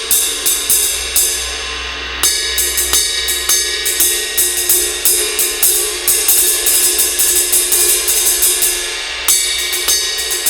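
A cymbal the player favours for small-group jazz, struck over and over with a drumstick in a ride pattern of several strokes a second, its wash ringing on between strikes. The playing breaks off briefly about a second in and again near the end.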